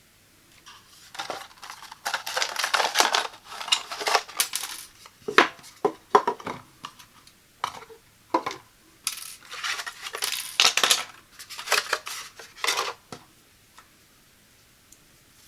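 Unboxing handling: hard plastic pieces clicking and clinking against each other, with rustling in between. It starts about a second in and stops a couple of seconds before the end.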